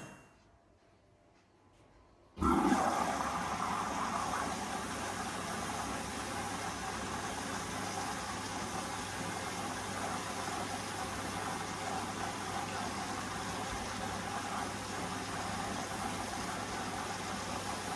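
Hoover Vision Dynamic washing machine: after about two seconds of near silence, water starts rushing into the drum suddenly and keeps running steadily as the machine fills.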